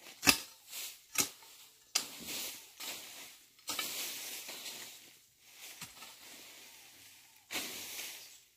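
A hoe chopping into soil and weeds: three sharp strikes about a second apart, then longer scraping and rustling, and another strike with scraping near the end.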